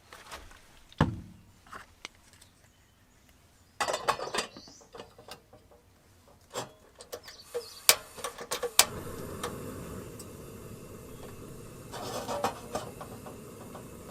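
Scattered knocks and clicks of objects being handled, with a low thump about a second in and a cluster of knocks around four seconds, then a steady hiss that starts about nine seconds in.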